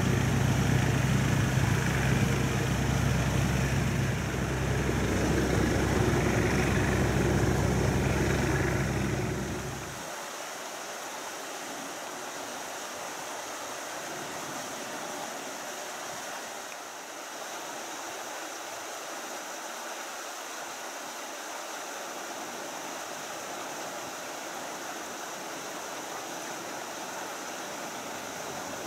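Airbus A330's jet engines running at idle as it taxis: a steady low rumble and hum for about the first ten seconds. The rumble then cuts off abruptly, leaving an even, steady hiss.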